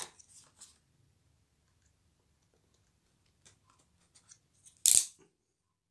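Snap-off utility knife blade cutting sealing tape on a cardboard box: faint scratches and small clicks, then one loud, short scrape about five seconds in.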